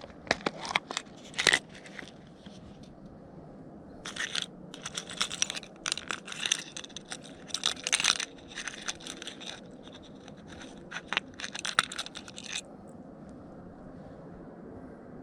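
Close crunching and scraping noises in three clusters of sharp clicks, then a quieter stretch near the end.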